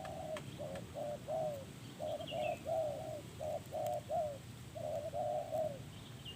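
A dove cooing: quick phrases of short coo notes, each dipping slightly in pitch, repeated several times in a row. A brief higher chirp comes about two seconds in.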